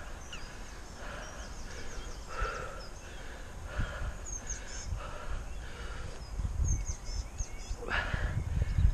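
Small birds singing in the hedgerows, a run of quick high chirps and trills, over an uneven low rumble of wind on the microphone that grows louder near the end.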